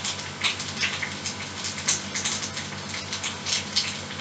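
Tea bag dunked up and down in a mug of hot tea: small irregular splashes and drips, over a low steady hum.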